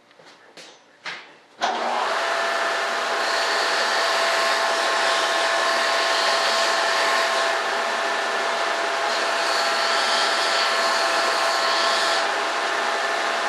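A few light knocks, then an electric motor-driven workshop machine switches on suddenly about a second and a half in and runs steadily, with a rushing hiss and a high whine.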